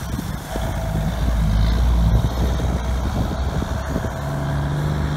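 Diesel engine of a cabover semi tractor pulling a loaded trailer away, running under load as the rig gets up to speed; the engine note swells over the first couple of seconds and changes pitch about four seconds in.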